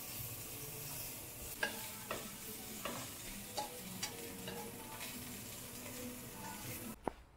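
Food sizzling as it cooks, with a steady hiss and a few sharp clicks and taps, like a utensil knocking the pan. It cuts off suddenly just before the end.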